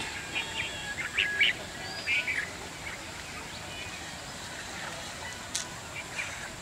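Small birds chirping in short calls over faint outdoor background, mostly in the first two and a half seconds, with one sharp click about five and a half seconds in.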